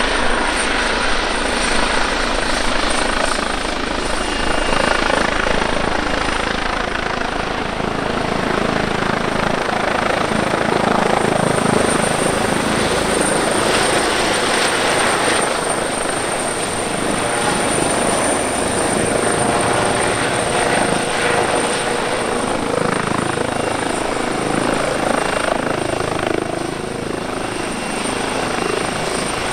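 Eurocopter EC135T3 (Airbus Helicopters H135) hovering and air-taxiing low on its landing approach. Its main rotor and twin Turbomeca Arrius 2B2 turboshaft engines run steadily, with a thin, steady high-pitched whine over the rotor noise.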